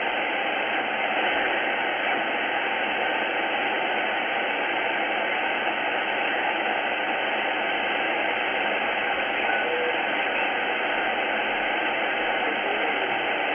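Tecsun S-2200x shortwave receiver in single-sideband mode giving steady band-noise hiss as it is tuned up through the 3.3–3.5 MHz range. Nothing is heard above about 4 kHz, where the sideband filter cuts it off, and a brief faint whistle passes about ten seconds in.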